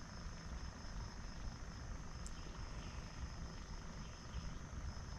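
A steady, high-pitched chorus of crickets or other night insects over an even low rumble.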